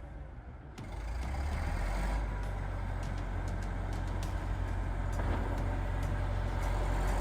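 Bulldozer's heavy diesel engine running steadily under load, mostly a deep low sound. It is quieter for about the first second, then grows gradually louder.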